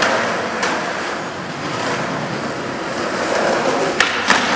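Skateboard wheels rolling on smooth concrete, a steady rushing rumble, then two sharp clacks of the board near the end as it is popped into the air.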